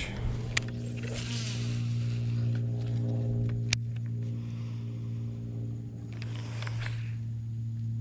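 Bass boat's bow-mounted electric trolling motor running, a steady low electric hum, with one sharp click about halfway through.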